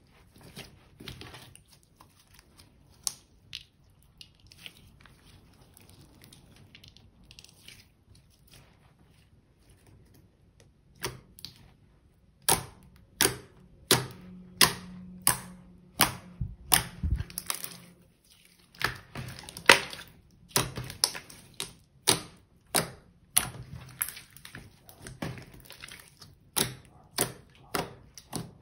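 Thick glossy slime being pressed and poked with the fingers against a wooden tabletop, giving wet clicks and pops as air pockets burst. Sparse and soft at first, then from about halfway through a steady run of sharp pops, about two a second.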